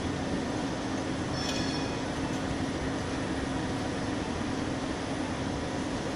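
Steady city street noise: a continuous rumble of traffic with a constant low hum running under it.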